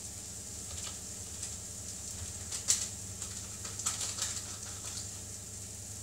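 Chicken pieces sizzling steadily in a frying pan, with a few short crackles on top, the loudest nearly three seconds in.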